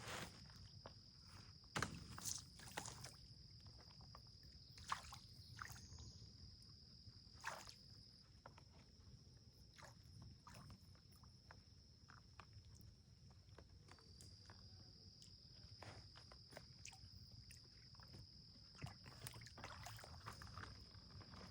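Faint outdoor quiet with a steady high-pitched insect buzz, broken by scattered small knocks and clicks.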